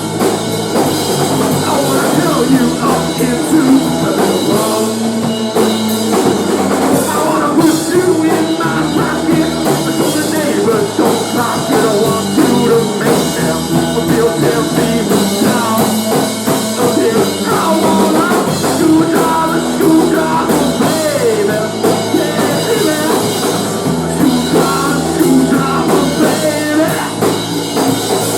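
Grunge-tinged rock band playing a loud instrumental passage over a driving drum kit.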